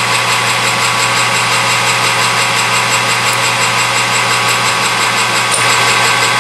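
Metal lathe running steadily under power, its motor and spindle giving an even hum.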